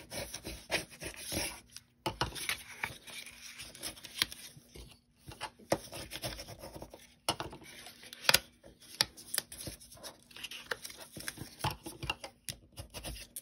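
Patterned paper being folded and rubbed flat along its score lines on a cutting mat: a dry rustle and rubbing, broken by many scattered light clicks and taps.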